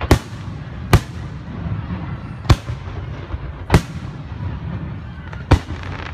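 Aerial firework shells bursting overhead: five sharp bangs at uneven gaps of one to two seconds, each ringing out briefly, over a steady low rumble.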